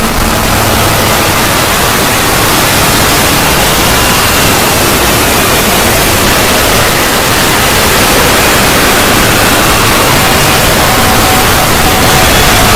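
A 'void' sound effect: loud, dense static-like noise filling the whole range, with faint tones drifting slowly in pitch through it.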